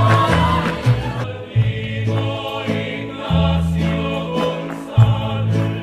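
Mexican folk music for a folkloric dance. About a second in it changes from a brisk, busy passage to slow, held chords over a deep bass, with a choir singing.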